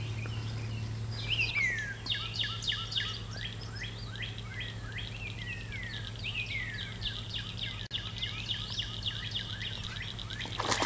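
Wild birds chirping, a busy run of short, quick notes that slide downward, over a steady high buzz.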